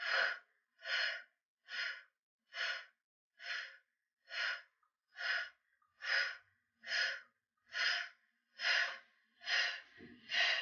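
A woman's short, forceful breaths through the mouth, evenly paced at a little more than one a second, about twelve in all, each one in time with a wide-squat pulse under exertion.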